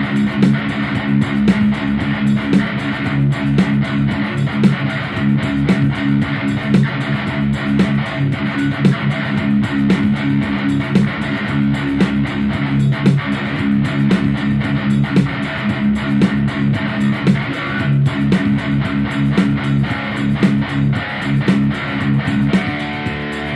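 Background music: guitar-driven instrumental with steady strumming and a bass line.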